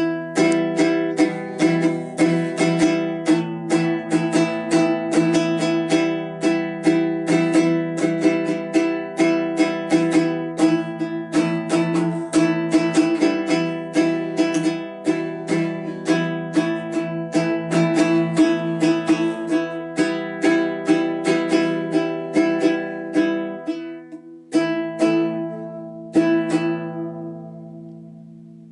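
Small acoustic guitar strummed fast and evenly, about three strums a second, the same chord ringing throughout. Near the end the strumming stops, with two last strums left to ring out and fade.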